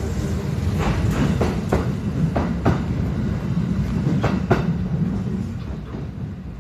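Kintetsu 2680 series electric train pulling out of the station: a low rumble with wheels clacking over rail joints at uneven intervals, fading away after about five seconds as the last car clears.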